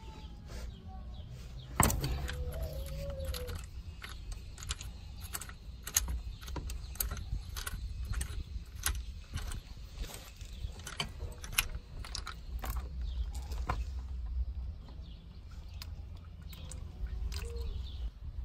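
A sharp crack about two seconds in as the transmission drain bolt breaks loose under a breaker bar. Then a run of clicks, about two a second, for some twelve seconds as the bolt is turned out with a ratcheting socket wrench, over a low steady rumble.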